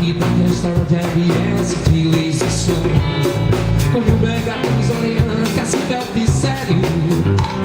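Live band playing an upbeat axé song, with drum kit, bass and guitar driving a steady dance beat.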